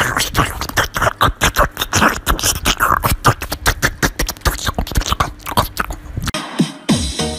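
English bulldog eating spaghetti noisily, a quick irregular run of wet smacks and slurps. It stops near the end, where music comes in.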